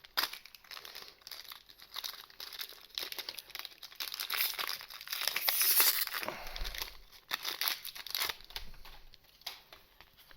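Trading card booster pack wrapper crinkling and tearing as the pack is handled and opened, in irregular rustles that are loudest in the middle.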